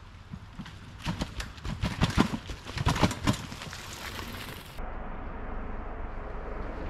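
Hardtail mountain bike with a dual-crown suspension fork riding down rocky trail steps: a run of sharp knocks and rattles as the wheels drop over the rocks, loudest two to three seconds in. Near the end it gives way suddenly to a steady outdoor hiss.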